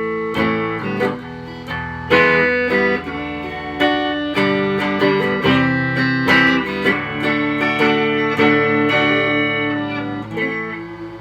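Electric guitar with Stratocaster-style single-coil pickups played clean on the neck pickup: a run of picked notes and chords that rings out and fades near the end.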